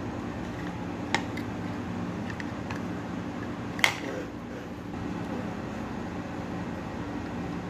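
Steady low fan-like hum, with a sharp click about a second in, a louder one near four seconds, and a few lighter ticks in between, from small tools handled at the workbench during removal of a power MOSFET from a circuit board.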